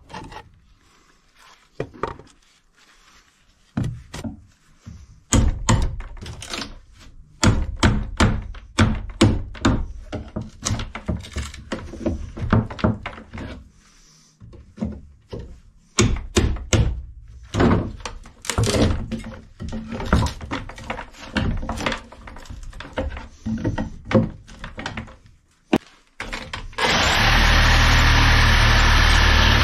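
Demolition of a wooden boat's cabin joinery: a long run of sharp knocks, thuds and cracks as panels and trim are struck, pried and wrenched loose, some blows in quick runs and some spaced out. Near the end a loud, steady rushing noise starts and keeps on.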